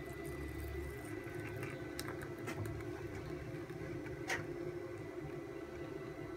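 Thick jaggery golden syrup poured from a pan into a steel bowl, the pour itself barely heard over a steady low hum. There are a few faint ticks and one sharper click about four seconds in.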